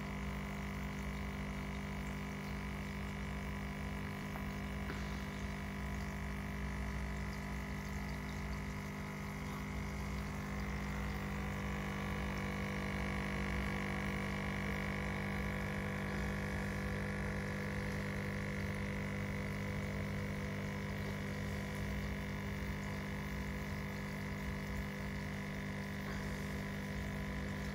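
Aquarium pump running with a steady hum, and water running into the tank.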